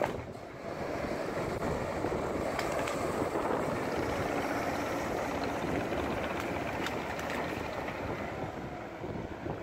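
Diesel engine of a tracked excavator running steadily as the machine drives past on its tracks, with a few faint knocks.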